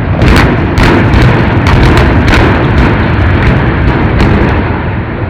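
Demolition blasts: a rapid string of sharp explosions, about two a second, over a continuous low rumble of collapsing debris.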